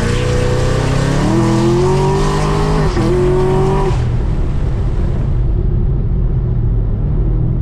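Camaro SS V8 accelerating hard in third gear, heard from inside the cabin: the engine note climbs steadily in pitch for about four seconds, with a brief hitch near three seconds in. It then falls back to a low steady drone as the throttle is lifted and the car cruises.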